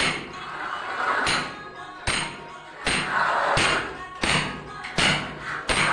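Background music with a steady beat of sharp knocks about every 0.7 seconds.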